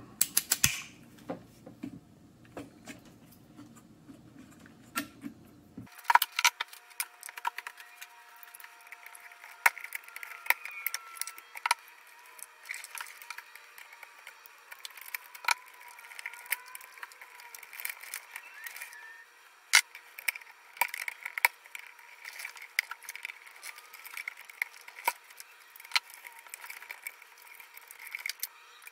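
Irregular clicks, taps and light scrapes of pliers and fingers working wire connectors and plastic parts inside an opened electric water boiler while its control board is being removed. Sparse at first, then a dense run of sharp clicks from about six seconds in.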